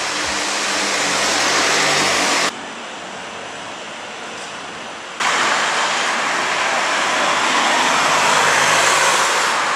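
A steady rushing noise that drops abruptly to a lower level about two and a half seconds in and comes back just after five seconds.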